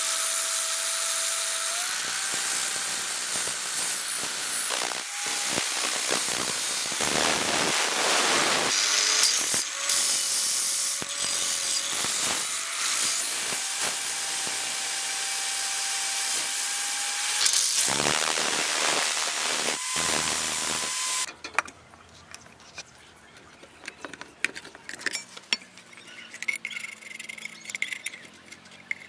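Electric drill spinning a sanding disc against the rusty steel blade of an old masonry trowel: a steady motor whine with gritty sanding noise, its pitch shifting as pressure changes. The drill stops about two-thirds of the way through, leaving only faint scraping and tapping.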